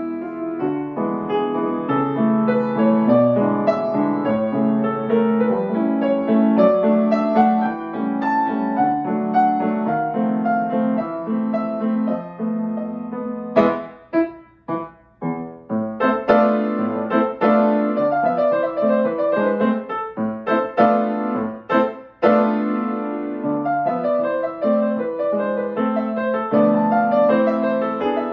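Solo grand piano playing a flowing run of quick notes. About halfway through, the texture breaks into short detached chords with brief gaps between them, then the flowing notes resume.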